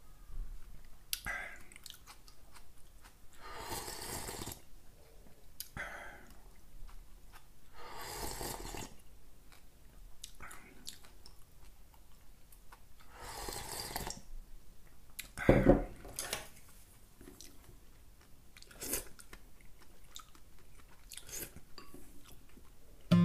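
Slurping sips of soup broth drunk straight from a ceramic bowl, a short noisy sip every few seconds, with one louder thump about two-thirds of the way through.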